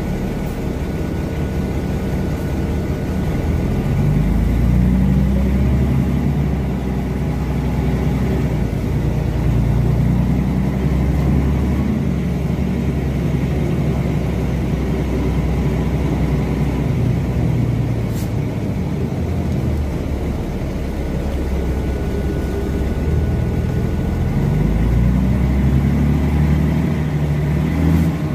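Mercedes-Benz O305 city bus heard from inside the passenger cabin while driving: the diesel engine note climbs in pitch several times as the bus accelerates, then drops back, over steady road and tyre noise.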